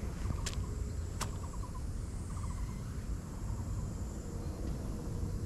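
Outdoor ambience picked up by a camera sitting on the ground: a low steady rumbling noise with faint short chirping trills now and then. Two sharp clicks come about half a second and just over a second in.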